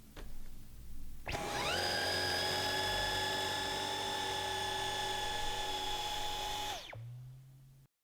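Dyson V11 Animal cordless stick vacuum's motor switched on: a high whine rises quickly about a second in, runs steady for about five seconds, then winds down as it is switched off.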